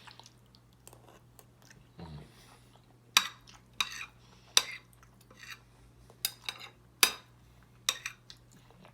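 A spoon clinking and scraping against a dish as food is scooped up, in a string of sharp clicks, the louder ones starting about three seconds in.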